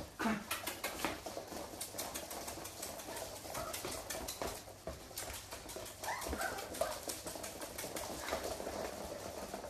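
Puppies' claws pattering and clicking on a hardwood floor as they scramble about, with a few short high whimpers about six seconds in.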